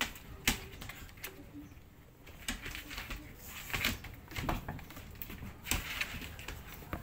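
Irregular rustles, taps and clicks of a shoe box and its wrapping being handled during an unboxing.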